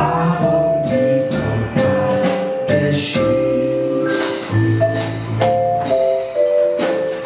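Small jazz ensemble playing: vibraphone struck with mallets over double bass and drums, with voices singing held notes.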